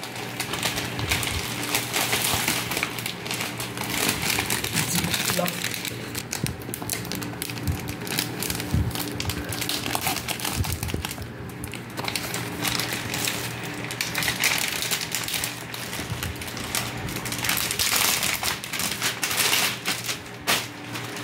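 Clear plastic clothing bags crinkling and rustling as they are handled and pulled open, a near-continuous run of rapid crackles with a short lull about halfway through.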